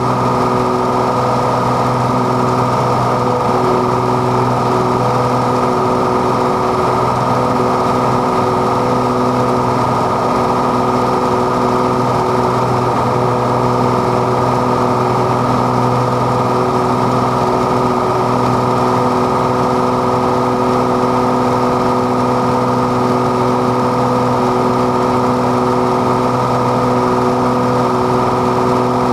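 Piper PA-32 Cherokee Six's single piston engine and propeller droning steadily in flight, holding one even pitch throughout.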